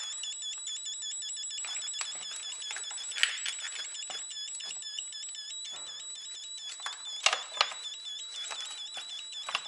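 A multimeter's continuity beeper sounds almost without a break, a high tone that flutters rapidly, while the car's wiring harness is wiggled, with scattered clicks from the wires and connectors being handled. The beeping comes more often as the wiring moves, a sign of an intermittent connection in the harness that the mechanic suspects is a short.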